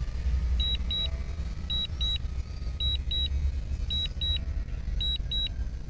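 Drone remote controller sounding its lost-signal warning: pairs of short high beeps repeating about once a second, over a steady low rumble.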